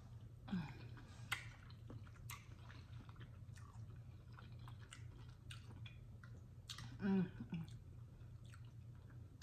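Close-up chewing of hot-sauce-soaked chitterlings: faint wet smacking and squishing mouth sounds with small clicks scattered throughout, and a brief louder sound about seven seconds in.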